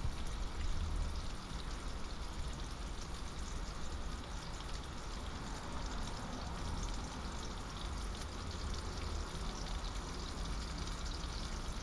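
Slices of smoked Mettenden sausage sizzling steadily in a frying pan on a portable gas cartridge stove, with fine crackles and a low rumble underneath.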